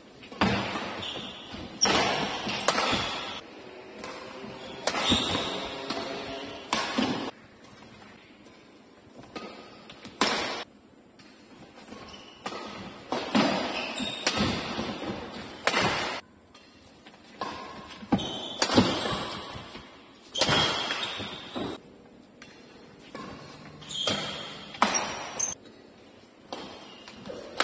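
Badminton rallies on an indoor court: rackets striking the shuttlecock at irregular intervals, each hit echoing in the hall, with short high squeaks of shoes on the court floor between some hits.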